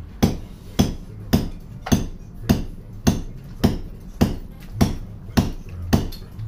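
Hammer blows striking steadily and evenly, about two a second, with a sharp crack on each blow.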